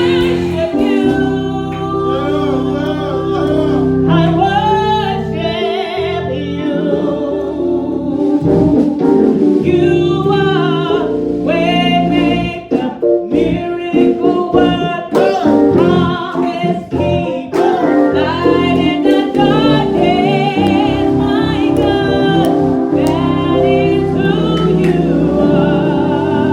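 Gospel singing: voices singing over sustained keyboard or organ chords, with a steady beat at times.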